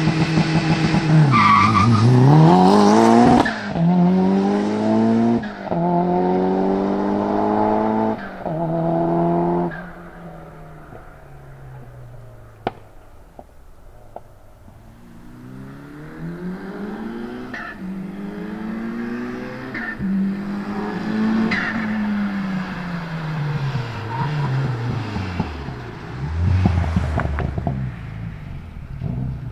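Turbocharged 2.3-litre 4G63 stroker four-cylinder of a Mitsubishi Lancer Evo VIII MR with an HKS exhaust, revved at standstill and then launched hard. It pulls through three gear changes, the note rising and dropping at each shift, and fades away into the distance. Later the car comes back, accelerating up through the gears, then the engine note falls off and it rumbles low as it slows and pulls in.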